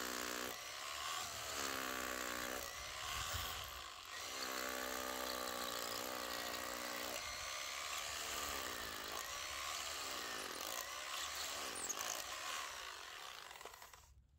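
Corded Bosch rotary hammer drilling an anchor hole into very hard concrete at the foot of a gazebo post, running steadily with its pitch wavering up and down as it works. It winds down and stops near the end.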